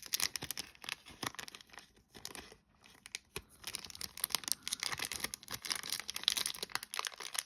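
Foil booster pack wrapper crinkling and tearing as it is pulled open by hand, in irregular crackles with a short pause about two and a half seconds in.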